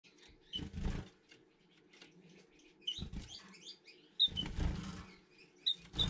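Small aviary finches giving short, high chirps and fluttering their wings between perches, in four brief bursts, over a faint steady hum.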